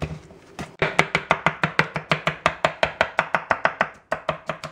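Kitchen knife rapidly chopping cucumber on a wooden cutting board: a quick, even run of about six to seven strokes a second, a few slower strokes near the end.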